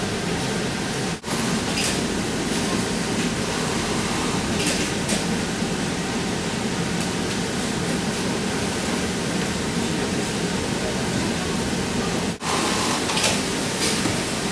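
Steady din of a garment factory floor: many industrial sewing machines running together, with a few faint clicks. The sound breaks off for an instant about a second in and again near the end.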